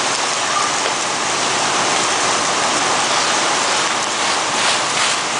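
Steady rushing hiss of a fire hose's water stream spraying onto a burning house.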